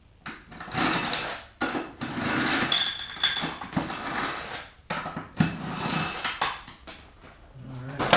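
Porter-Cable impact driver running in several bursts of about a second each, its rapid hammering used to take fasteners off a go-kart's rear axle.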